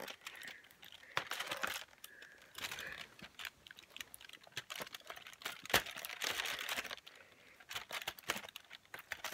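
Foil and cardboard of a chocolate advent calendar crinkling and clicking in irregular bursts as a small child's fingers pick at the foil over the chocolate.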